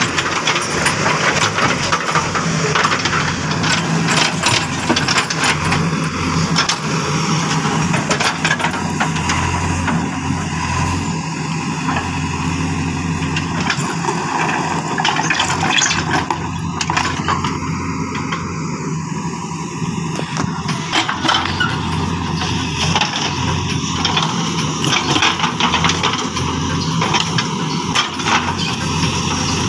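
JCB backhoe loader's diesel engine running steadily, with repeated sharp clanks and knocks as the backhoe bucket and arm scrape and strike the ground.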